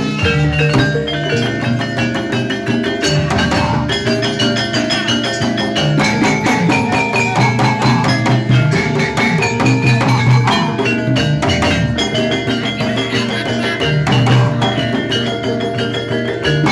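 Live jaranan ensemble music: kendang drums and saron metallophones playing a steady, busy rhythm with kenong and gong accents.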